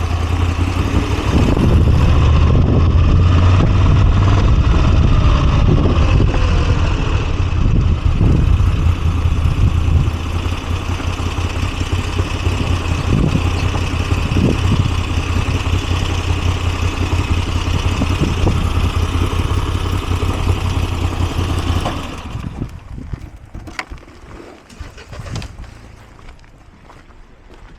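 Moto Guzzi V85TT's air-cooled transverse V-twin running while riding, a loud steady low throb with some rise and fall in pitch. About three-quarters of the way through the engine sound stops abruptly, leaving a much quieter background with a few clicks.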